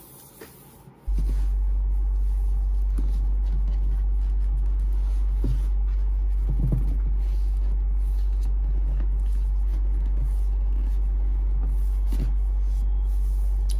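A loud, steady low hum starts suddenly about a second in and holds level, with faint scattered taps and knocks over it.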